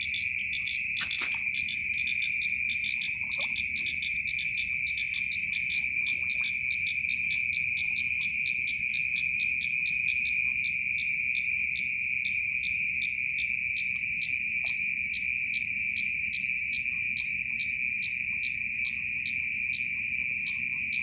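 Steady, high-pitched chorus of crickets and other night insects, with pulsing chirps layered above it. A short knock about a second in.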